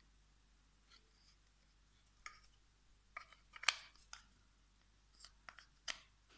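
Faint, irregular clicks and scrapes of the parts of a Goldrake model being handled and pressed together, the loudest a sharp click a little past halfway.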